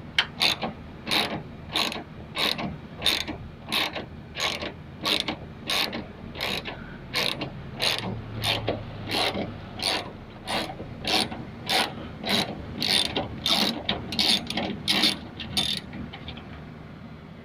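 Ratchet wrench with a 10mm socket loosening a bolt: its pawl clicks in a steady rhythm, about one and a half strokes a second, and stops near the end as the bolt comes free.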